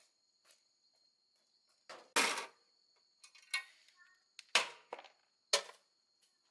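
Four sharp knocks, each ringing briefly, starting about two seconds in and coming roughly a second apart, over a faint steady high whine.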